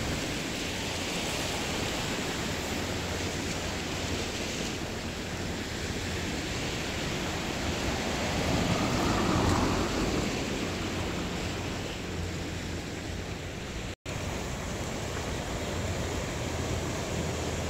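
Sea waves washing onto the shore in a continuous surging wash, swelling louder as a bigger wave breaks about halfway through. The sound cuts out for an instant a little later.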